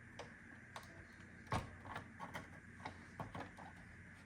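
Faint, scattered clicks and taps of plastic parts of a Roomba robot vacuum being handled during disassembly, with one sharper click about a second and a half in.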